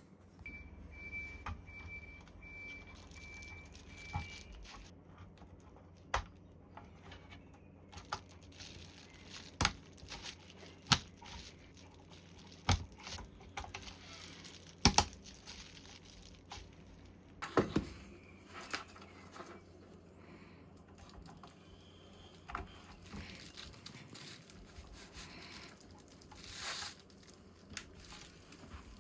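Hands working with computer hardware as RAM sticks are fitted into a motherboard and the power supply is connected: rustling and handling noise with scattered sharp clicks and knocks.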